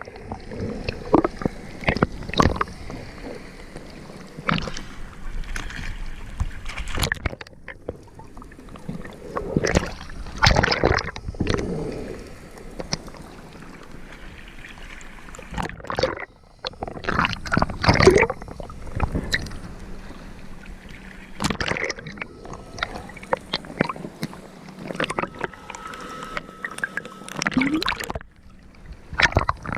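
Sea water gurgling and sloshing around a freediver, with irregular splashes and knocks; the loudest come about ten and eighteen seconds in.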